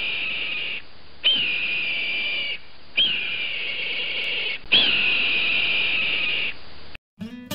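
Hawk screaming: the same long, high screech over and over, each call opening with a quick upward flick and then held, about every one and a half to two seconds. Near the end the calls stop and music begins.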